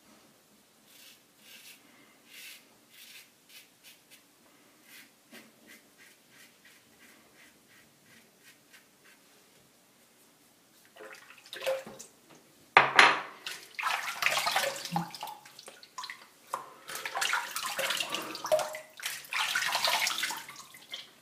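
A faint, quick run of short scraping strokes, a safety razor going over stubble on the neck, then a sink tap turned on about thirteen seconds in, with loud running water and splashing as lather is rinsed off the face.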